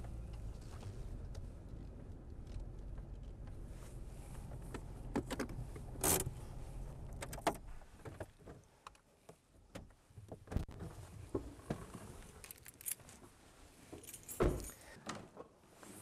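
A Chevrolet TrailBlazer's engine running at a low idle as the SUV backs slowly into the garage, then shutting off about halfway through. After that come clicks and jangling keys, and a car door shuts with a thump near the end.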